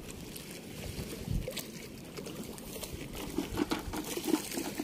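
River water trickling and pouring steadily, with scattered small clicks and a few low knocks as a nylon cast net is handled and gathered up for a throw.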